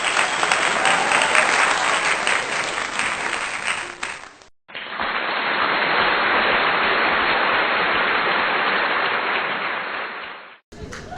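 Crowd applause sound effects played back to back: a first burst of clapping fades out about four seconds in, then after a brief gap a second, duller-sounding applause recording swells and fades away near the end.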